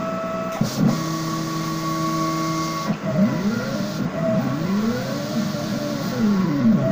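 Vinyl cutter plotter's stepper motors whining as the cutting head and roller drive move. For about two seconds they hold a steady pitch, then a series of whines sweeps up and down as the head speeds up and slows down.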